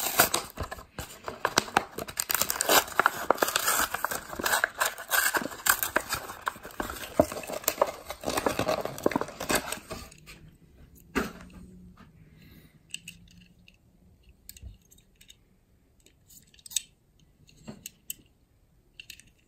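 Plastic blister and cardboard backing card of a Hot Wheels package crinkling and tearing as it is pulled open by hand for about ten seconds. A sharp click follows, then a few light clicks.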